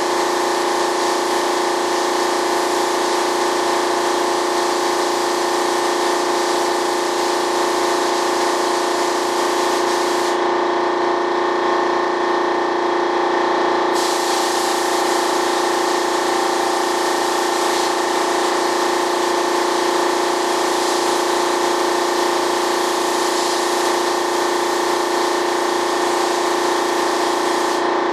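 Gravity-feed paint spray gun hissing as it sprays a coat, over a steady machine hum. The hiss stops for a few seconds about ten seconds in, then resumes.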